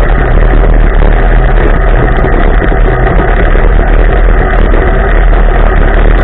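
Polaris RZR side-by-side engine running steadily while driving over gravel. It is loud and close to the microphone, mixed with rushing noise.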